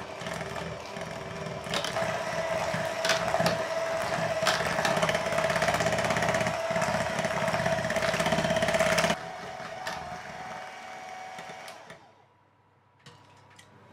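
Electric hand mixer running, its beaters whipping butter into cooling pastry cream in a metal saucepan to make crème mousseline. The motor whines steadily with clicks from the beaters against the pan. It gets quieter about nine seconds in and stops about twelve seconds in.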